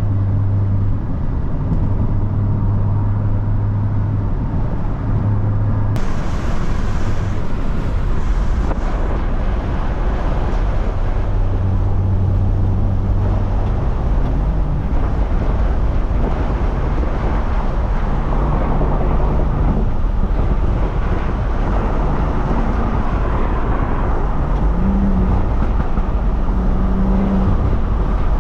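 BMW 335i turbocharged inline-six, stage 2 tuned with a catless exhaust, running steadily while the car is driven, with constant road noise. The engine note rises twice: about halfway through and again near the end.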